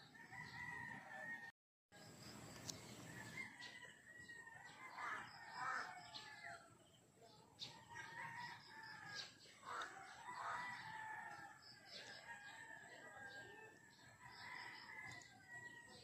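Roosters crowing faintly, several crows one after another. The audio cuts out completely for a moment about one and a half seconds in.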